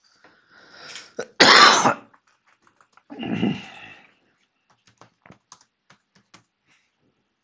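A person coughs loudly once about a second and a half in, then clears their throat, followed by faint computer keyboard clicks as keys are typed.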